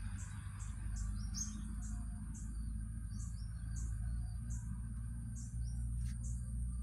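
Outdoor insect and bird ambience: a steady high-pitched insect drone with a bird chirping in short falling notes about twice a second, over a low rumble.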